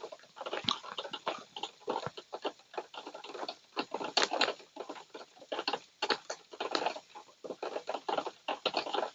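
Rain pattering: a dense, irregular run of close taps as drops strike near the microphone.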